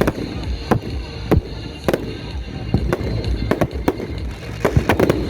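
Fireworks going off in a run of sharp bangs and cracks at irregular intervals, coming thicker near the end, with music playing underneath.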